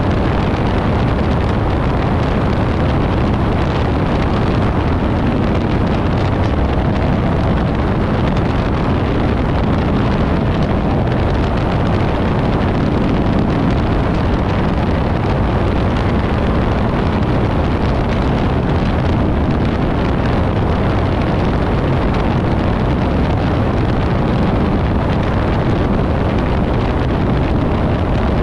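Piper Pawnee tow plane's engine running steadily, mixed with wind rush over the airframe, heard from the cockpit on final approach.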